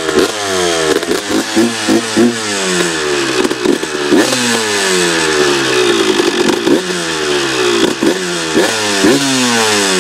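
1998 Honda CR125's 125 cc two-stroke single-cylinder engine being revved, about nine sharp throttle blips with the revs falling away between them.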